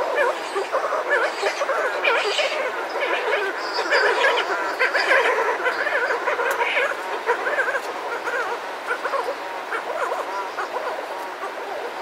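Buller's shearwaters calling close up, a pair at their burrow with others around them: a dense run of overlapping wavering, rising-and-falling cries. It is busiest in the first half and thins out toward the end.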